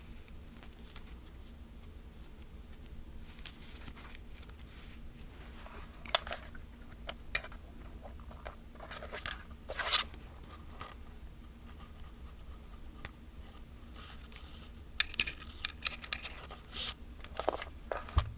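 Fingers handling a plastic film camera: scattered light clicks, rubs and scrapes on its hollow plastic body, coming in small clusters, the busiest near the end.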